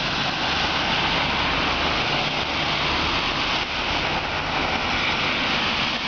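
Road traffic on a wet street: a steady hiss of car tyres on wet asphalt, with a low engine hum underneath.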